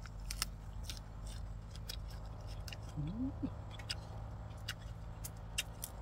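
Crisp, scattered clicks and snaps of fresh herbs and spring onion stalks being picked apart and peeled by hand, over a steady low hum. A brief rising vocal murmur comes about three seconds in.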